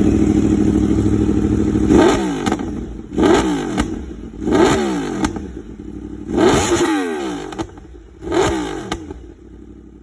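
Yamaha YZF-R1 RN32's crossplane inline-four on an aftermarket exhaust, idling and then blipped five times. Each rev rises and falls quickly, with pops and crackles from the exhaust as it drops back.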